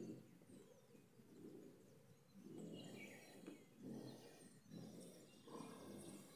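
Faint outdoor farmyard ambience: an uneven low rumble with a few short, falling bird chirps.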